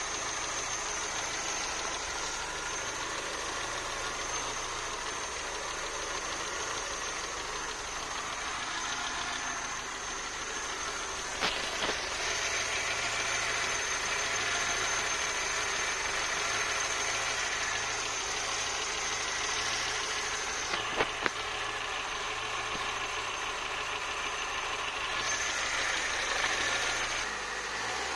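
Citroën BX 14's four-cylinder 'suitcase' engine idling steadily, left running with the coolant cap off while air is bled from the cooling system. Two short sharp clicks come about 11 and 21 seconds in.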